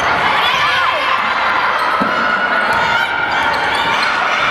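Gym ambience of a volleyball rally: sneakers squeaking on the hardwood court, a ball thud, and the chatter of players and spectators.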